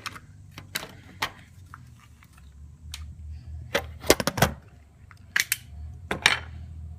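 Small alarm sensor housings being opened by hand: scattered clicks and snaps, with a quick run of sharp cracks about four seconds in and a few more a second or two later, over a low steady hum.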